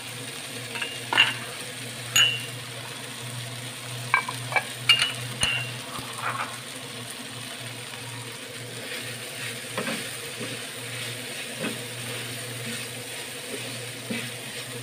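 Chopped chilies, garlic and ginger sizzling in oil in a nonstick frying pan, stirred often with a wooden spatula to keep them from scorching. The spatula knocks and scrapes against the pan several times, most sharply about a second, two seconds and four to six seconds in.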